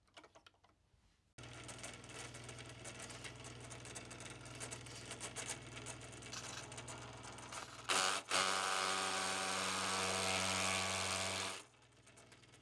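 Half-horsepower furnace blower motor driving a LEGO gear train starts running suddenly after a few faint clicks, with a steady hum and gear whir. From about eight seconds a spinning LEGO propeller piece scrapes loudly against a cardboard tube for about three and a half seconds, the motor's pitch holding steady under the load.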